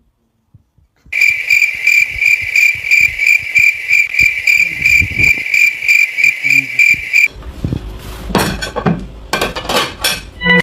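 Cricket chirping sound effect, the comic cue for an awkward silence: a high, steady trill pulsing about four times a second. It starts and stops abruptly after a moment of near silence. A few seconds of scuffling noise with sharp knocks follow.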